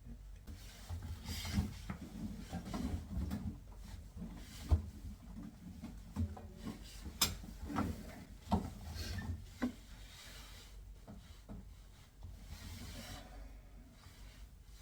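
Rubber door boot gasket of a front-load washer being worked by hand around the door opening: irregular rubbing and handling noise with a few sharp clicks and knocks.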